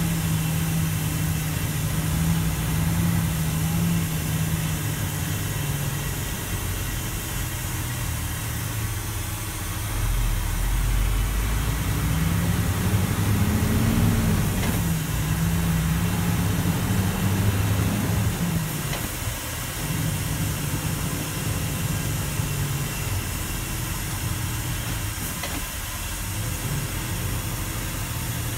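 Mercedes-Benz heavy truck's diesel engine running under way, heard from inside the cab. Its note drops away and returns a few times, climbing in pitch and getting louder through the middle.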